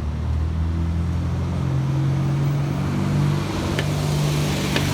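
Car engine running steadily, its pitch rising slightly about two seconds in, with a few faint clicks near the end.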